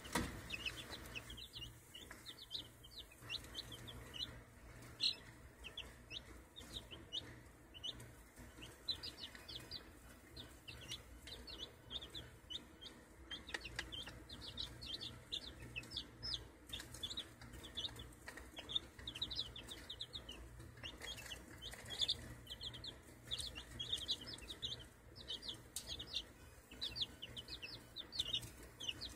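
A brood of six-day-old chicks (Saipan jungle fowl, Oxford Old English Game, Ameraucana and Phoenix crosses) peeping continuously, many short high peeps overlapping one another, over a faint steady low hum.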